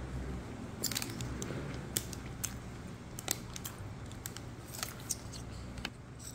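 Scattered small clicks and scrapes from a takeout lunchbox and utensils being handled as a meal begins, over a steady low hum.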